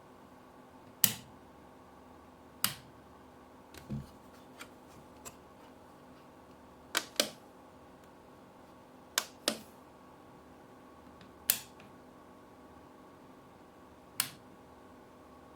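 Sharp, loud clicks at irregular intervals a second or more apart, some in quick pairs, with a few fainter taps and a dull thud about four seconds in.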